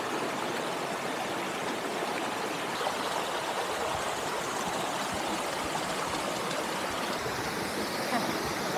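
Small mountain stream running over boulders in little cascades: a steady rush of water.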